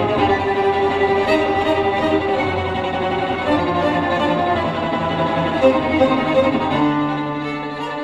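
Instrumental music of bowed strings, violin with cello, played back through hi-fi loudspeakers in a speaker sound test, with sustained notes that shift to a new held chord near the end.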